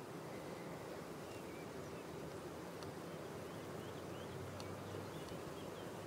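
Steady hum of a honeybee colony buzzing around its hive.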